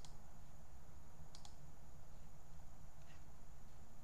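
A few computer mouse clicks, one near the start, another about a second and a half in and a fainter one about three seconds in, over a steady low hum.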